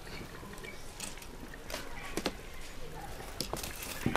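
Outdoor yard ambience with a few scattered light clicks and knocks, the sharpest about two seconds in and near the end, over faint background voices.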